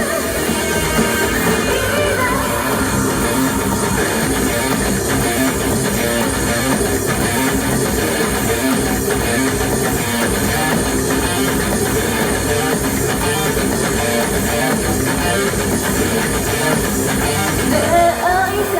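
Rock band playing an instrumental passage, electric guitar over a drum kit, steady and loud, with the voice coming back in near the end.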